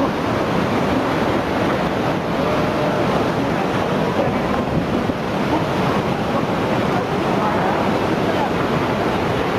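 Loud, steady rushing of floodwater, mixed with wind on the microphone, with faint distant voices.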